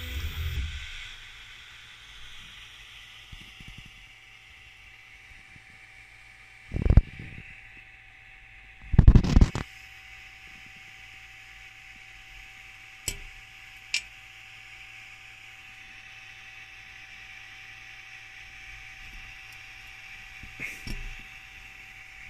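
A homemade 3D printer's stepper motors stop about half a second in, leaving the steady hum of its cooling fan. Two dull bumps come around the middle, followed by a few light clicks as the small plastic prints are handled on the glass bed.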